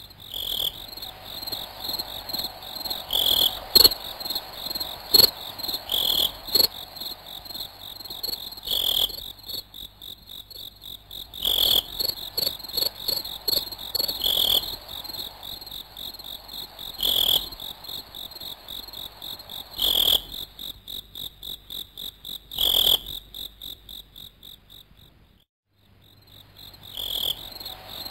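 Crickets chirping: a steady high trill with louder chirps every two to three seconds. Light taps and scrapes of a plastic spoon in a glass beaker come through it, and all the sound cuts out briefly near the end.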